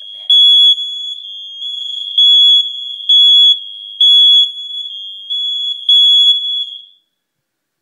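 Interconnected home smoke alarms sounding during an alarm test: a high, piercing tone with loud beeps about once a second over a quieter unbroken tone from the other alarms. It cuts off suddenly near the end.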